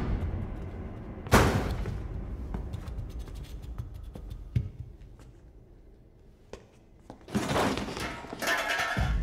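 Dramatic soundtrack: a loud thud about a second in that dies away slowly over a low rumble, a few faint knocks, then a rush of noisy movement near the end.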